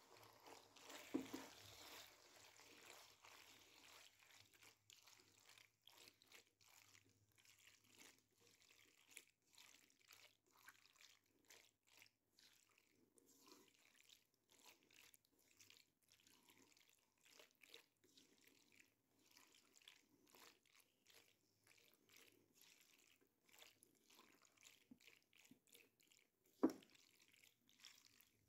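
Faint, irregular squelching and scraping as saucy macaroni is stirred and tossed with a silicone spatula in a non-stick wok. There is one sharp knock near the end.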